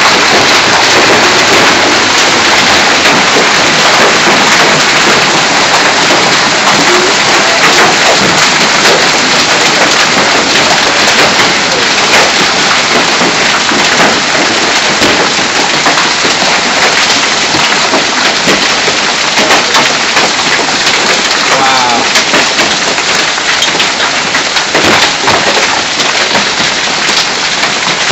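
Heavy hailstorm with driving rain: a dense, steady hiss of falling rain broken by many sharp cracks of large hailstones striking the ground and the porch roof.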